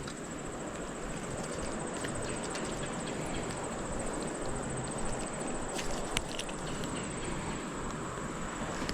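A steady high-pitched insect trill over an even rush of creek water, with a couple of light clicks about six seconds in.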